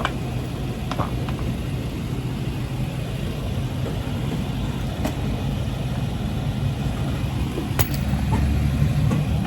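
A car's engine running with a steady low rumble, a few sharp clicks and knocks over it, the rumble swelling louder near the end.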